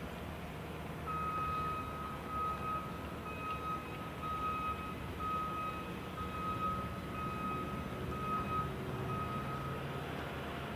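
A reversing alarm on a site machine sounding a steady run of even, high beeps that starts about a second in and stops near the end, over the low hum of diesel engines running.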